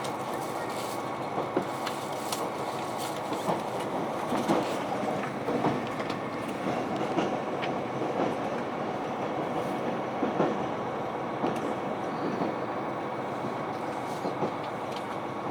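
KiHa 261 series diesel express railcar running, heard from inside the car: a steady rumble of running noise with a faint steady whine, broken by scattered, irregular knocks from the wheels and track.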